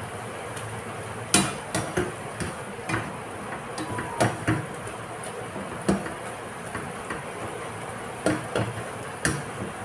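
Slotted spatula knocking and scraping against a nonstick frying pan in about a dozen irregular clicks while sweet potato leaves and garlic are stir-fried in oil, over a steady hiss.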